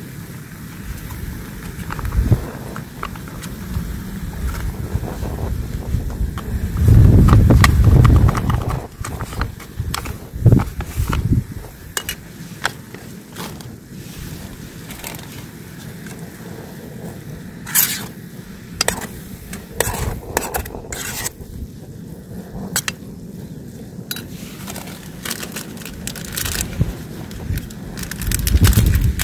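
Outdoor noise of wind buffeting the microphone in gusts, the strongest about a quarter of the way in, mixed with many scattered clicks, scrapes and crunches of things being handled or stepped on.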